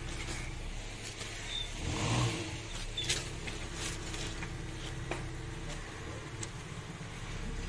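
Steady engine hum of a nearby motor vehicle that swells briefly about two seconds in, with a few light metallic clicks as small gearbox parts (the synchro hub's lock keys and ring) are pressed into place by hand.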